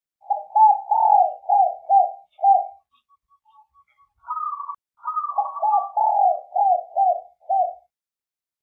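Spotted dove (derkuku) cooing: a run of about six deep, evenly spaced coos, then after a pause a higher rolling phrase leading into a second run of coos.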